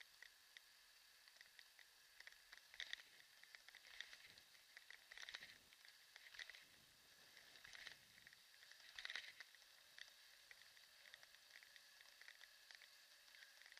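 Near silence: faint, irregular ticks and rattles over a faint steady high hiss.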